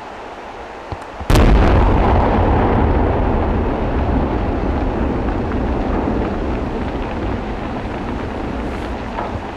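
Dynamite blast in a rock face: after two faint pops, one sharp detonation about a second in, followed by a deep rumble that slowly dies away.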